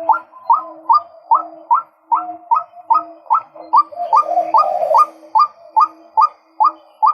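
Male white-breasted waterhen calling: a steady run of short, rising notes, about two and a half a second, each answered by a lower, hooting note.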